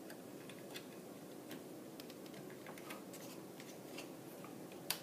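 Faint handling with scattered small plastic clicks as wire-harness plug connectors are pressed down into their sockets on a TV power supply board, with one sharper click near the end.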